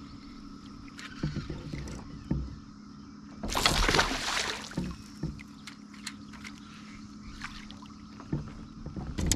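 A hooked fish splashing and thrashing at the water's surface beside the kayak for about a second and a half, the loudest sound, with a few light knocks before and after.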